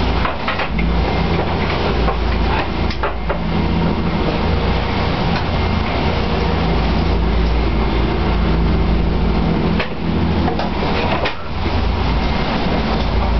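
Pilot boat's engines running steadily at speed, heard from inside the wheelhouse as a loud, even drone. A few brief knocks and splashes come as the hull meets the waves.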